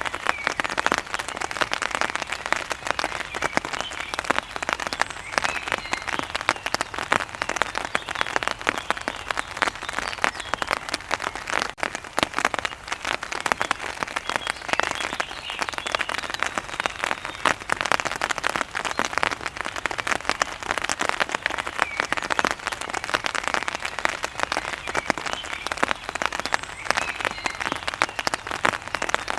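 Rain falling steadily, a dense patter of countless drops.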